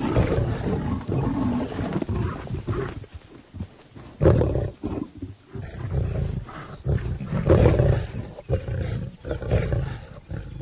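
Lionesses snarling and growling at one another in a series of harsh, irregular bursts as they squabble, with a short lull about three seconds in.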